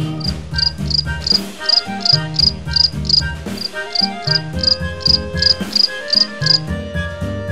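Background music with a bass line and held chords, and a high chirping tick repeating about three times a second that stops near the end.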